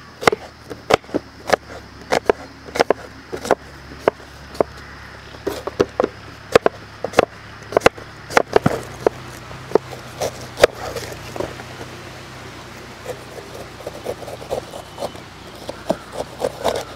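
Large kitchen knife chopping green apples on a wooden cutting board: sharp, irregular knocks of the blade through the fruit onto the board, a few a second, growing sparser in the later part.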